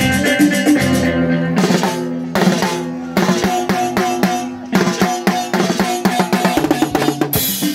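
Moroccan chaabi band playing live: a drum kit keeps a fast, busy beat of snare and bass drum hits over held keyboard and electric guitar notes.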